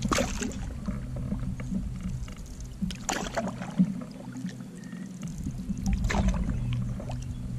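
Canoe paddle strokes splashing and dripping in the water, three of them about three seconds apart, over a steady low hum.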